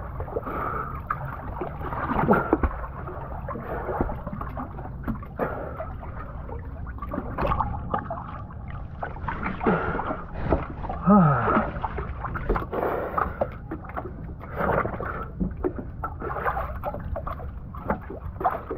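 Water splashing and sloshing close to the camera as a swimmer moves at a boat's stern, with irregular knocks and bumps from the camera being handled and set on the swim platform.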